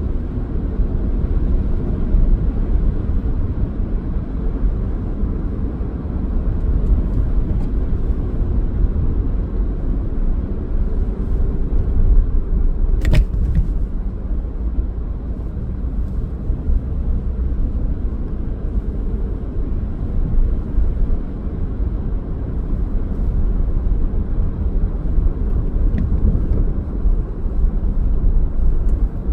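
Car driving, with a steady low engine and road rumble and one short click about halfway through.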